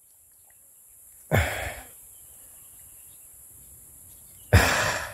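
Two short, forceful exhalations from a man straining to pull an eel from its burrow, about three seconds apart, over a faint steady hiss.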